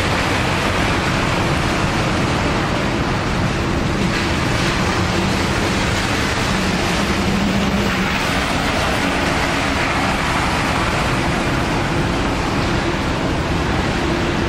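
Steady hiss of rain, with a low steady hum from a MAX light rail train standing at the platform with its doors open.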